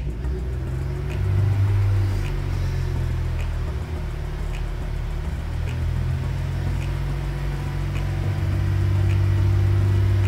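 Vauxhall Corsa engine held at raised revs, about 2,500 to 3,000 rpm, to bring it up to temperature after a new water pump and thermostat. The engine note is steady and swells near the end, with a faint tick about once a second.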